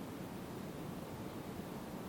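Steady low rushing background noise, even throughout, with no distinct events.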